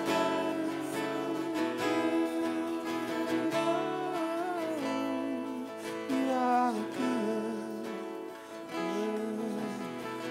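Live worship music: acoustic guitar strumming chords under a sustained band sound, with a melody line gliding up and down over it.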